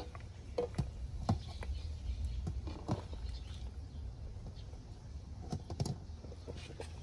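Scattered light clicks and knocks of food being prepared by hand, irregular and a second or so apart, over a low steady rumble.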